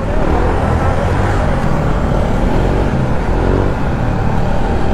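Motorcycle engine running as the bike rides through traffic, with steady road and wind noise.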